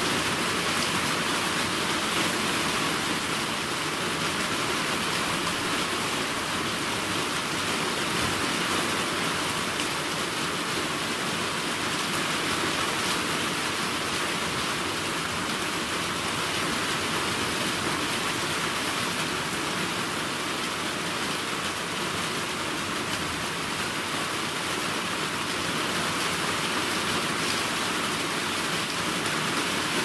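Steady rain from a summer storm: an even, unbroken hiss of falling rain that stays at the same strength throughout.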